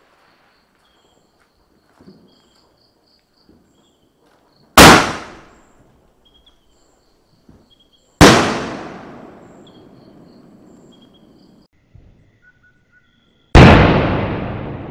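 Two-inch aerial fireworks shells (sky shots) going off: three loud bangs a few seconds apart, each one ringing away slowly.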